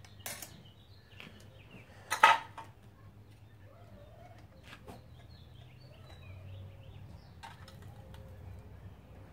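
A sharp metallic clank about two seconds in, with a few lighter clicks of metal being handled, over birds chirping and a steady low hum.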